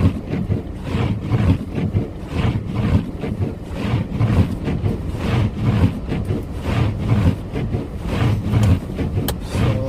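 Steady engine and road rumble of a car being driven, heard from inside the cabin.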